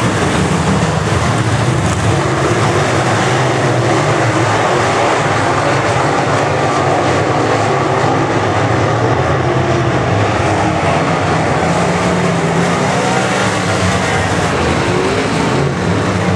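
A pack of steel-block dirt late model race cars running laps together, their V8 engines making a loud, continuous, steady drone.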